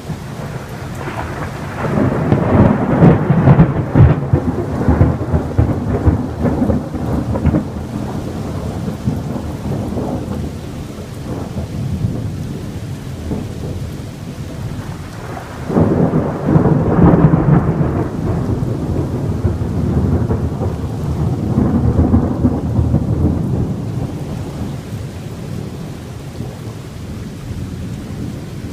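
Thunder rumbling over steady rain in a thunderstorm: a long roll of thunder begins about two seconds in, another about sixteen seconds in, and a smaller one follows near twenty-two seconds.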